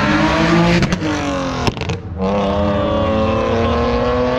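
Car engine revving hard, climbing in pitch, then cut briefly with a few sharp cracks about a second in, before being held at high revs with a slowly rising note.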